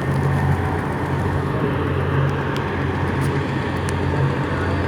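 Tugboat diesel engines running steadily: a low drone with a broad rush of noise over it.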